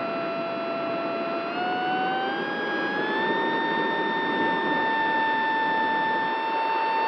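Electric motor and propeller of an Esky Eagle RC plane whining steadily over a rush of wind on the onboard microphone. The pitch rises smoothly about a second and a half in as the motor speeds up, then holds.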